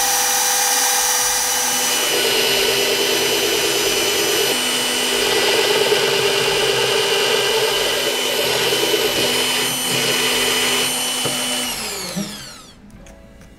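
Bosch benchtop drill press running, its Forstner bit boring into plywood; the rougher cutting noise comes in about two seconds in as the bit bites. Near the end the motor is switched off and winds down with a falling whine.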